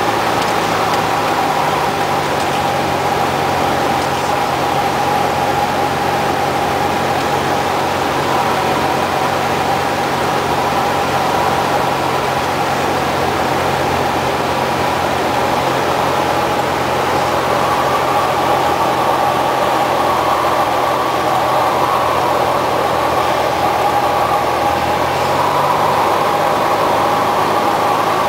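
Piston engine and propeller of a single-engine high-wing light aircraft in flight, heard inside the cabin as a loud steady drone; the engine note rises a little about 25 seconds in, a change in power.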